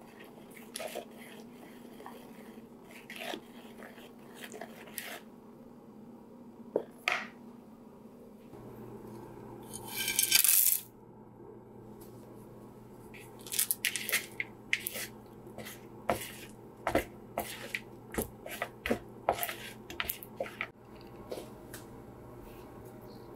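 A spoon stirring pancake batter in a plastic mixing bowl, knocking and clicking against the bowl's side. About ten seconds in, chocolate chips pour into the bowl in one brief, loud rattling rush, then the stirring picks up again with a quick run of sharp clicks.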